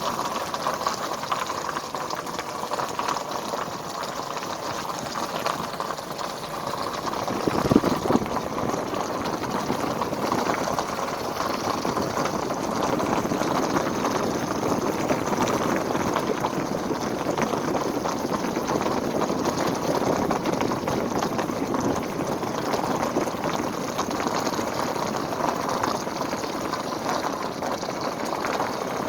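Flooded river water rushing steadily, with a single knock about eight seconds in.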